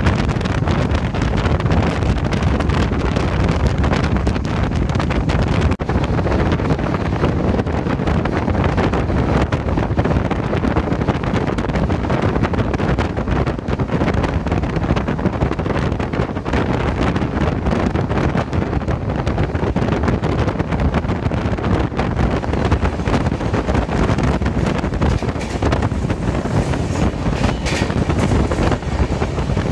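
Steady wind rushing over a phone microphone, with the running rumble of a moving express passenger train.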